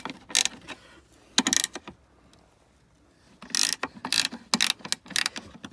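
Ratchet spanner clicking in several short runs as the bolts of the tailgate striker latch are loosened, with a longer run of clicks near the end.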